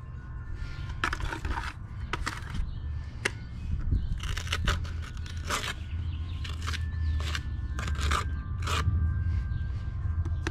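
Small steel trowel scraping and packing quick-setting cement into a broken concrete step: a run of short, irregular gritty scrapes, over a steady low rumble.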